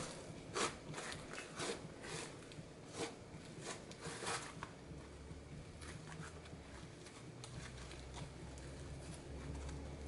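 Hands kneading and stretching glittery fluffy slime: sticky pops and crackles as the slime is squashed and pulled apart. The pops are sharpest and most frequent in the first half, then turn to a fainter, denser crackle.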